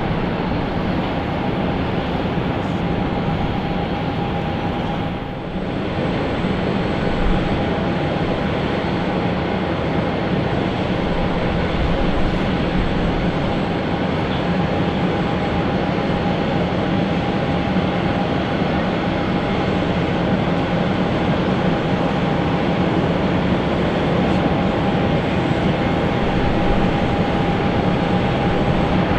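Airliner engines running steadily, a dense roar with a constant whine held over it, growing slightly louder near the end.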